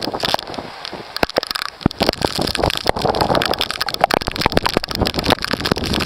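Heavy rain and wind through the open window of a moving off-road vehicle: a constant rush with raindrops striking in dense, irregular clicks, busier from about two seconds in.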